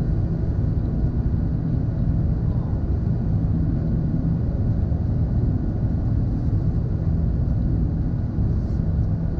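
Steady low rumble inside an Airbus A380's cabin during the climb after takeoff: its Rolls-Royce Trent 900 engines and the airflow around the fuselage heard through the cabin wall.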